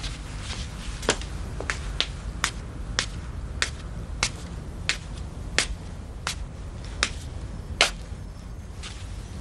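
Footsteps of hard-soled shoes clicking on tiled stairs, about one sharp step every half second, steady and unhurried.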